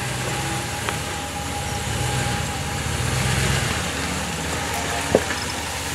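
Jeep Wagoneer's engine running low and steady as the SUV crawls over rocks on a dirt trail, with a sharp knock about five seconds in.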